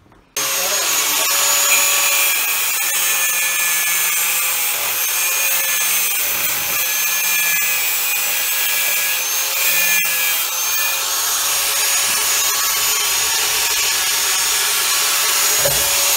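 Angle grinder with a cutting disc cutting through a metal part clamped in a vise, a steady loud whine with grinding noise, beginning abruptly about half a second in.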